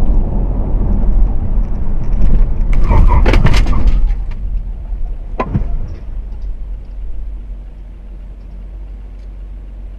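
Loud, low rumble of a car on the road as picked up by a dashcam. About three seconds in comes a cluster of sharp bangs and crunches, and about two seconds later a single knock, after which the rumble dies down.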